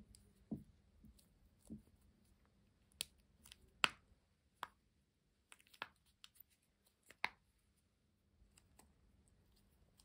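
Bubbly glitter slime being stirred and poked with a thin plastic tube in a clear plastic bowl: about a dozen scattered soft pops and sharp little clicks as air bubbles in the slime squish and burst. There are two duller squelches in the first two seconds, and the sharpest clicks come a few seconds in.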